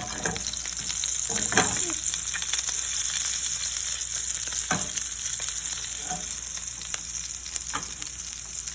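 Wagyu rib-eye steak searing in hot vegetable oil in a pan, a steady crackling sizzle, with a few brief knocks now and then.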